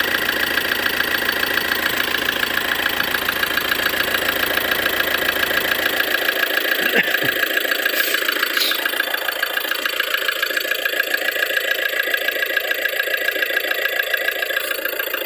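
2013 Ford Transit 2.2 diesel engine idling with a fast, steady, rhythmic knock, which the owner presents as a knock in the engine. Its low rumble falls away about seven seconds in.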